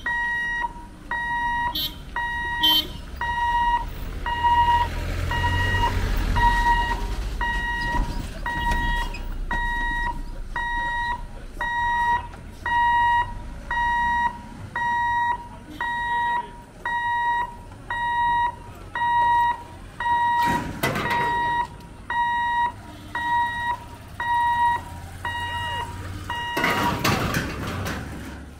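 Level-crossing warning buzzer beeping a steady high tone about once a second while the boom barriers come down ahead of a train. A vehicle rumbles past about five seconds in, and two loud rushes of noise come about two-thirds through and near the end.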